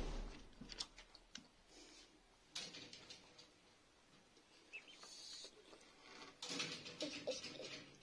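Young chickens pecking and drinking at a plastic bottle waterer, in irregular scuffles and clicks, with a short high peep about halfway through.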